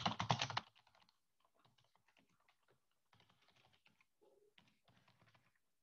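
Typing on a computer keyboard: a quick run of keystrokes in the first half second, then fainter keystrokes scattered through the rest.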